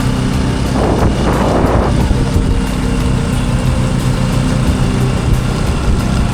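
Motorcycle engine running steadily while riding, with a short rush of noise about a second in.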